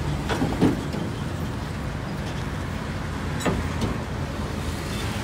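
Roadside traffic: passing trucks and motorbikes running, with a few short knocks about half a second in and again about three and a half seconds in.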